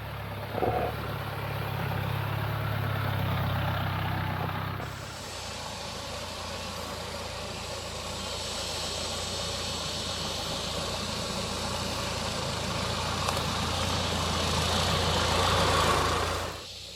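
Mahindra Thar's engine running as the jeep drives up a rough off-road track. About five seconds in the sound changes and a hiss joins the engine. It grows louder toward the end and cuts off suddenly.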